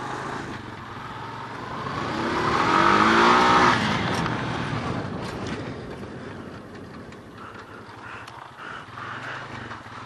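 Four-wheeler (ATV) engine revving hard, climbing in pitch to its loudest about three and a half seconds in, then easing off to a lower running note. A few sharp clicks or knocks follow just after the peak.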